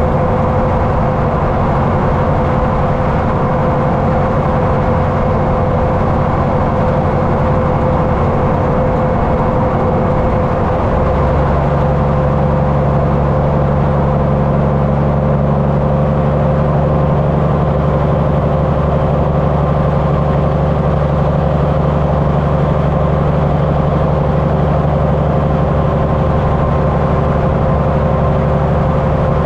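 Semi-truck diesel engine idling steadily, heard through its twin chrome vertical exhaust stacks. About eleven seconds in the engine note changes and grows slightly louder and heavier, then holds steady.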